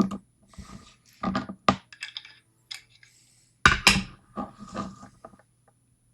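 A picked lock and metal picking tools being handled, with irregular clicks, clinks and knocks in short bursts, the loudest cluster about four seconds in.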